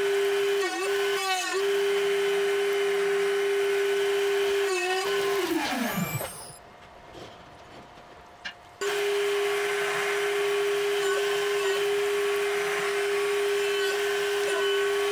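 CNC spindle with an insert face mill running at a steady whine, facing 4140 alloy steel with a hissing cutting noise and a couple of brief dips in pitch under load. About six seconds in the spindle winds down, its pitch falling away, and after a short quiet spell the whine starts again abruptly for a light re-run skim pass over the overhanging edge.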